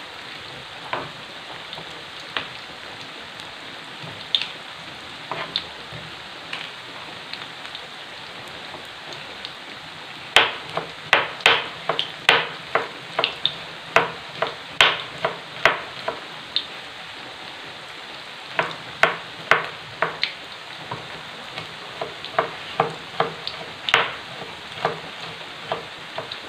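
Kitchen knife slicing garlic on a plastic cutting board: sharp knocks, scattered at first, then a quick run of chops from about ten seconds in and another run later. Under it runs the steady sizzle of tempeh frying in hot oil.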